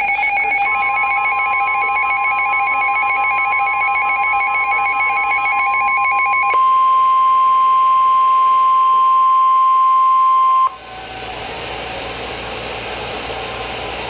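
Weather radio alert: a warbling, ringing electronic alarm sounds until about six and a half seconds in, with a single steady warning tone starting under it just under a second in. The steady tone carries on alone, louder, then cuts off sharply about ten and a half seconds in, leaving radio hiss. It is the NOAA Weather Radio warning alarm tone that comes before a severe thunderstorm warning.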